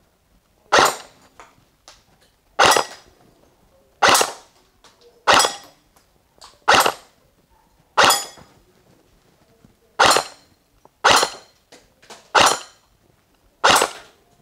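G&G M1 Garand airsoft electric gun firing single shots at plate targets: ten sharp shots about one to two seconds apart, each followed by a short metallic ring as a BB strikes a plate.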